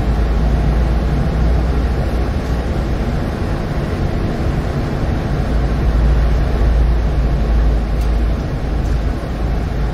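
Inside a Solaris Urbino 18 III articulated city bus under way, its DAF PR265U1 diesel engine runs steadily under a deep low rumble of road and tyre noise.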